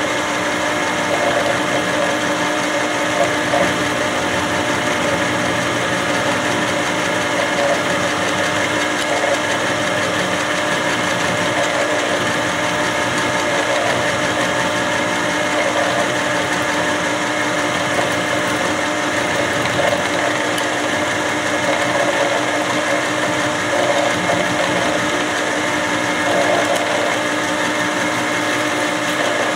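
Milling machine spindle running a 3/4-inch four-flute end mill as it slowly cuts down into extruded aluminum: a steady machine drone with several held tones.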